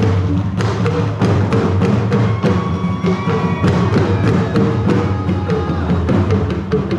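Dagomba drum ensemble playing praise-name dance music: lunga talking drums sound short strokes that bend in pitch over a steady low drum pattern, in a dense continuous rhythm.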